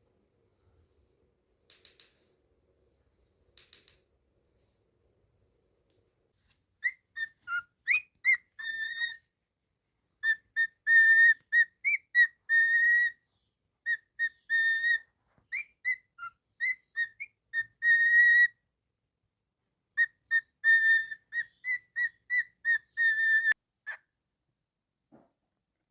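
Cockatiel whistling a tune in short clear notes grouped into phrases with brief pauses, beginning a few seconds in and stopping shortly before the end. Two faint clicks come before the whistling.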